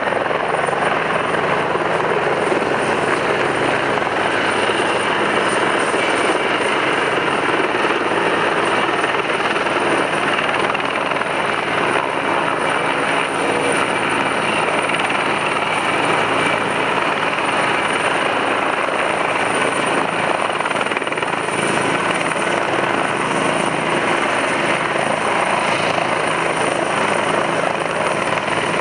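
Helicopter hovering: steady, loud rotor and turbine noise.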